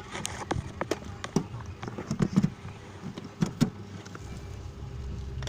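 A run of sharp clicks and taps from small repair tools being handled on a workbench, followed by a low steady hum that comes in about four seconds in.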